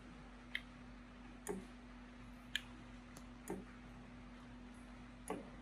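A metal spoon clinking lightly against bowls, about five faint clicks a second or so apart, as a soft blended melon mixture is scooped from a porcelain bowl and ladled into a small plastic bowl.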